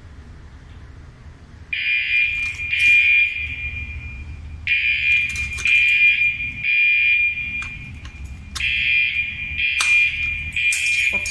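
Mircom FHS-340R fire alarm horns start sounding about two seconds in. They give a shrill steady tone in roughly one-second blasts, grouped in threes with a short pause between groups, and echo in an underground parking garage.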